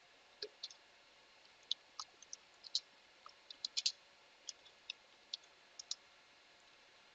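Computer keyboard keys clicking in irregular, scattered taps, some in quick clusters, as a command is typed into a terminal.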